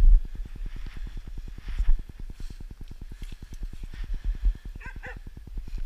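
A dog gives two short, high yips about five seconds in. Underneath runs a low rumble with dull thumps from steps through deep snow.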